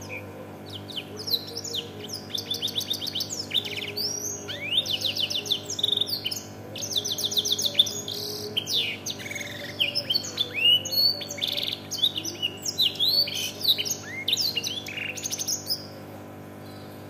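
Domestic canary singing a long, fast song of trills, rapidly repeated notes and quick rising and falling sweeps: an Indonesian 'isian' canary whose song is filled in with the blackthroat's song. The song stops near the end, leaving a steady low hum.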